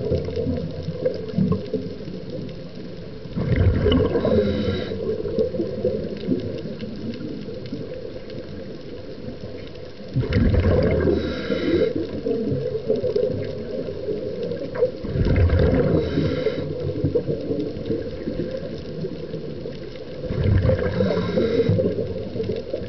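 A scuba diver breathing through a regulator underwater: exhaled bubbles gurgle out in four bursts, roughly every five seconds, over a steady low wash of water noise.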